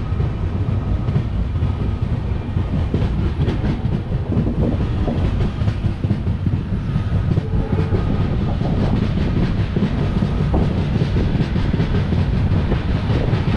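A moving passenger train heard from an open coach doorway: a steady rumble of the wheels on the rails, with an irregular clatter over rail joints.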